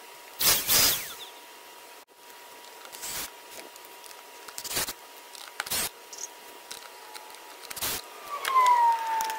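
Several short knocks and clatters from handling the plastic shop-vac housing and tools, then near the end a small cordless screwdriver runs, driving a screw into the plastic housing, its whine sliding down in pitch.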